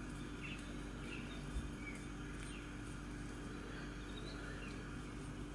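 Quiet background: a steady low hum with a few faint, short bird chirps now and then, and one soft thump about a second and a half in.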